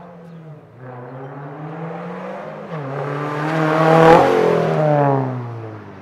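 2023 Subaru BRZ's 2.4-litre flat-four, breathing through an AWE Tuning Track Edition catback exhaust, accelerating hard through the gears. The revs climb, drop at a gear change about three seconds in, then climb again to the loudest point as the car passes about four seconds in. The note then falls in pitch and fades as the car drives away.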